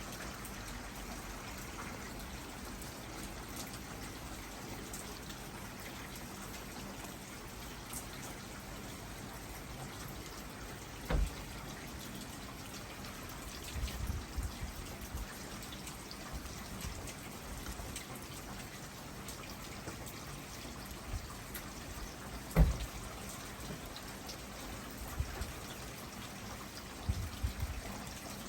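Steady rain falling from a warm front, an even hiss of water. Two sharp knocks stand out, about 11 seconds and 23 seconds in, with a few softer low thumps between.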